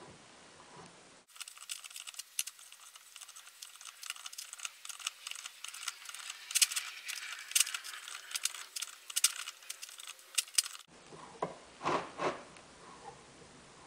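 Hand deburring tool scraping the edge of a freshly drilled hole in a metal part: a quick, irregular run of light metallic scrapes and clicks that starts about a second in and stops abruptly near the end.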